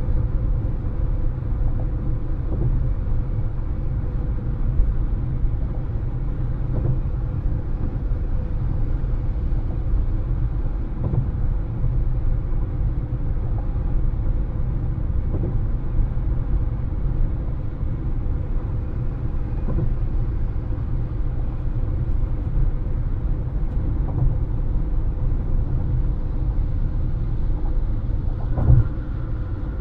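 Road noise of a moving car: a steady low rumble of tyres and engine, broken by occasional light thumps, with a louder thump near the end.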